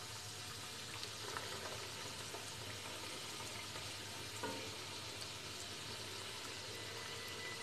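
Semolina golgappa puris deep-frying in hot oil in a kadhai on a low flame: a steady gentle sizzle. A light knock of the wooden spatula against the pan comes about four and a half seconds in.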